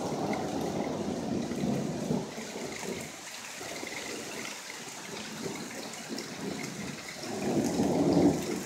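Hail and rain falling steadily, with a low rumble of thunder swelling near the end.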